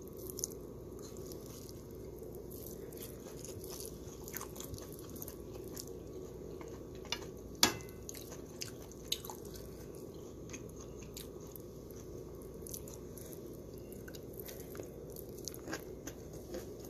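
Eating fried rice by hand: quiet, scattered sticky clicks of fingers working rice and curry on a plate, along with chewing, over a steady low hum, with one sharper click about seven and a half seconds in.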